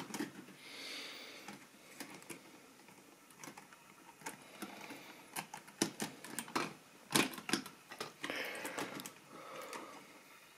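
Irregular light clicks and clatters of plastic model railway wagons being handled by hand and set on the track, with a cluster of sharper clicks a little past halfway.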